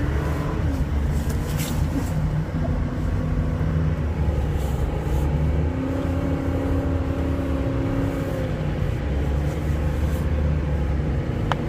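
All-wheel-drive car's engine pulling under load as it climbs a steep, snow-covered driveway. The revs rise at the start, then hold fairly steady with small changes, over a heavy low rumble.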